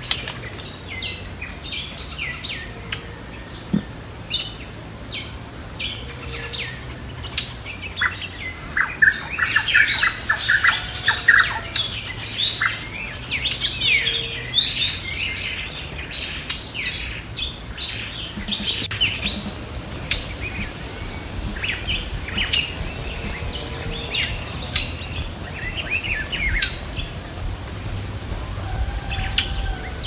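A chorus of wild birds calling, with many short chirps and quick falling notes that are thickest in the middle stretch.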